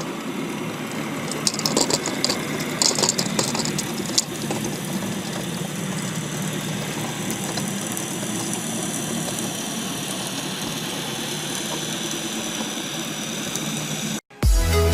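Steady engine-like drone heard underwater, with a cluster of sharp clicks about one and a half to three seconds in. It cuts off near the end, and music begins.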